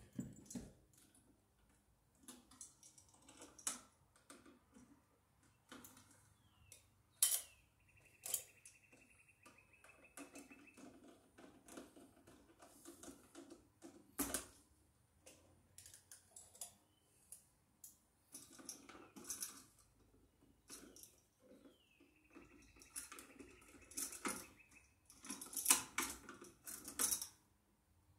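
Small metallic clicks and clinks of hand tools on copper wire and an outlet's terminal screws as the wires are bent around the screws, scattered and irregular. Twice, a steady high-pitched rasp lasts about three seconds.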